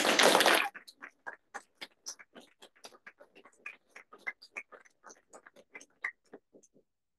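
A short burst of rustling noise, then a long run of quick, irregular light clicks and ticks, several a second, that thin out near the end.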